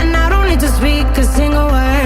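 Pop song with a sung melody over a steady bass line, playing as background music.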